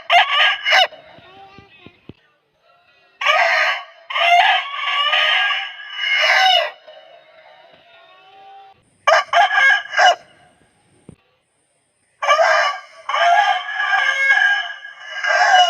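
Aseel rooster crowing repeatedly: short crows alternate with long, drawn-out ones lasting about three seconds, with brief pauses between them.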